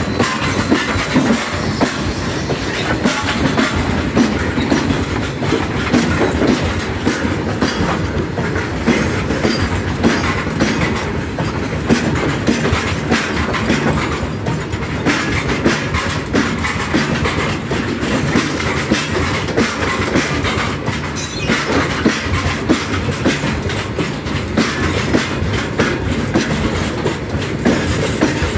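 Loaded coal freight train of open-top wagons rolling past at close range: a steady rumble of steel wheels on rail with a continuous clickety-clack of wheels over rail joints and many sharp clanks.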